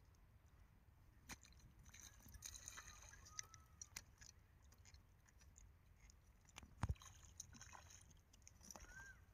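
Near silence, with faint scattered clicks and small handling sounds as a hooked fish is held and the hook worked out of its mouth by hand; one sharper click comes about seven seconds in.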